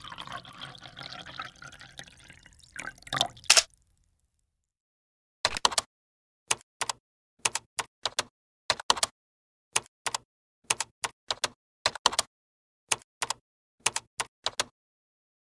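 Kitchen tap running, water pouring over a dinner plate, ending about three seconds in with two sharp knocks. After a short pause comes a long irregular series of short clicks and taps, about two a second.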